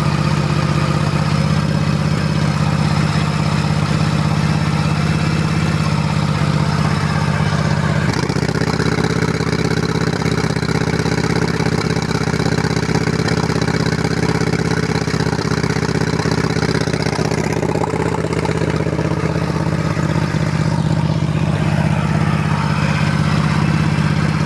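Motorcycle engine idling at a slightly raised idle, which it needs to keep from stalling; it sneezes now and then in the muffler and the engine, a misfire whose cause the owner cannot find. The engine note shifts about eight seconds in.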